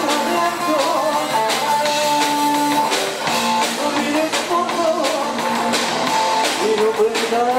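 Music with a steady beat: guitar over a drum kit, in a rock style.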